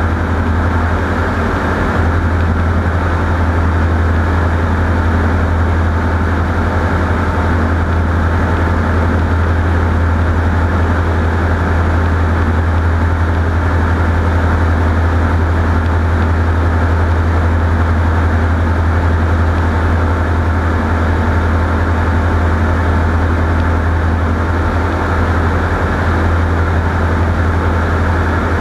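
Light aircraft's piston engine and propeller running steadily, a constant low drone with no change in power.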